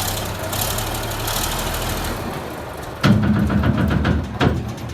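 Bulldozer's heavy diesel engine running steadily, then growing suddenly louder about three seconds in with a rapid, even pulsing for a second and a half, ending on a sharp knock.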